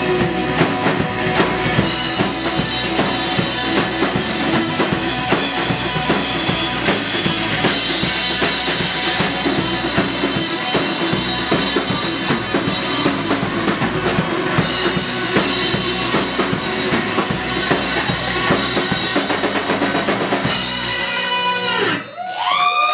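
Rock band playing live, with the drum kit loud: bass drum, snare and rimshots. The song stops about a second before the end.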